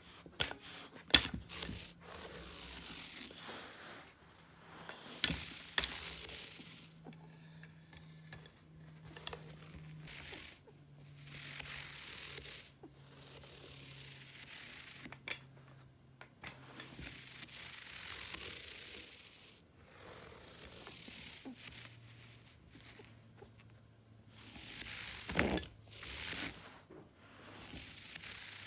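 Repeated bursts of rubbing and scraping, each lasting a second or two, with a few sharp clicks near the start and again around the middle and near the end.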